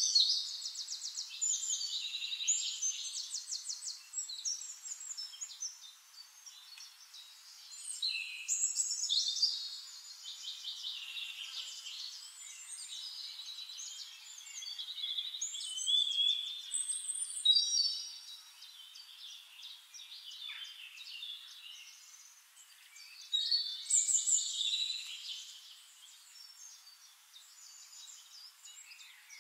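Bird singing: four phrases of rapid high trills and chirps, each a few seconds long, coming about every eight seconds.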